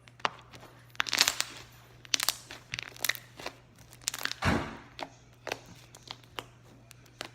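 Slime being squished and stretched by hand, with irregular sharp pops and crackles and a couple of longer crackly squelches.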